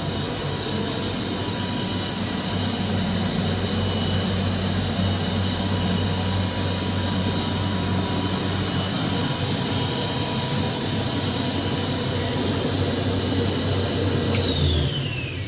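KAESER SM11 7.5 kW rotary screw air compressor running steadily at working temperature, with an even whine and hum. Near the end the motor shuts off and winds down, its whine falling steeply in pitch.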